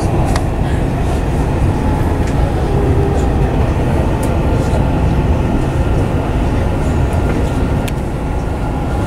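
Dubai Metro train running between stations, heard from inside the carriage: a steady running noise with a few faint clicks.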